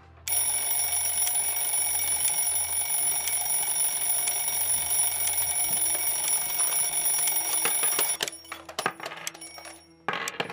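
Twin-bell mechanical alarm clock ringing loudly and continuously, then stopping suddenly about eight seconds in. A few clicks and knocks follow, and a short rustle comes near the end.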